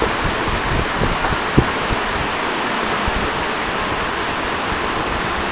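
Steady rushing of a fast river's current, with wind buffeting the microphone in low rumbles; one light knock about a second and a half in.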